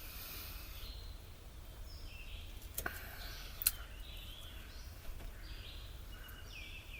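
A person chewing a chewy piece of crispy dark-meat chicken, with irregular mouth sounds and two sharp clicks near the middle.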